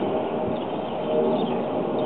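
Steady rumbling noise with a few sustained tones that come and go, and faint short bird chirps over it.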